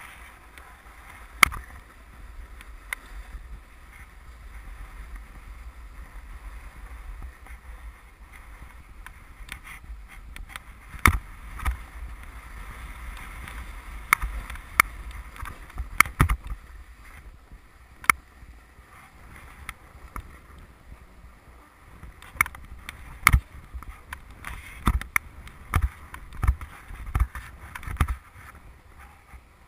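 Snowboard sliding over packed snow, a continuous scraping hiss with low wind rumble on the microphone, broken by many sharp knocks, most often in the second half.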